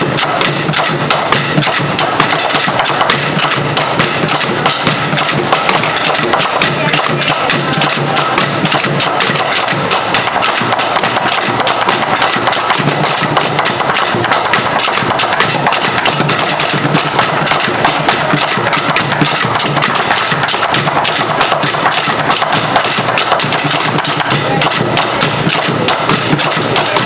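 Ensemble drumming with sticks on upturned plastic trash cans and buckets and a plastic lid: a fast, dense, steady stream of hits with no pause.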